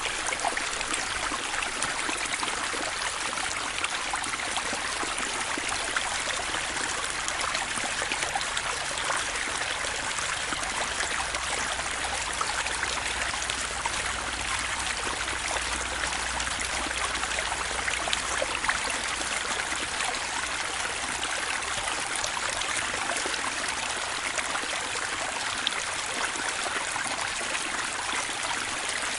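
Small river flowing steadily over rocks, a continuous rushing and trickling of water.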